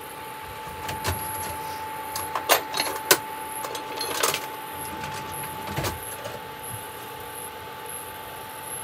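Portable Copper Chef induction cooktop heating a pan of oil, giving a steady whine, with several sharp knocks and clatters of utensils and containers handled on the counter during the first six seconds.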